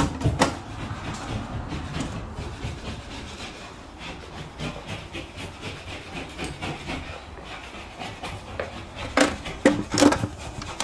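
Irregular rubbing and scraping of hand work on a hard surface, with a few sharp knocks just after the start and several louder knocks near the end.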